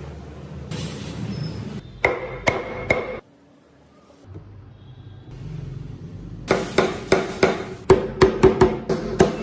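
Hammer blows in hand tool work: three ringing strikes about half a second apart, then after a gap a quick run of strikes, about four a second.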